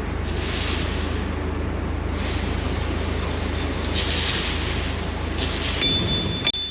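Steady machine noise: a low drone under a hiss that swells now and then, with a sharp click and a short high ring near the end.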